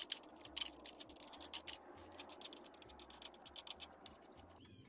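Rapid, irregular metallic ticking of a hex nut being spun by hand along a threaded steel rod on the motor-mount tensioner, loosened to slacken the drive belt; the ticking stops shortly before the end.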